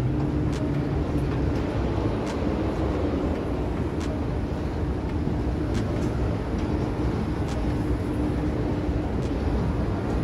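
Escalator running with a steady low rumble and a constant hum, with faint scattered clicks.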